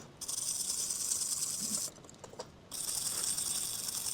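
A small motorised hand tool running with a steady high-pitched hiss in two runs of about two seconds each, with a short stop between them.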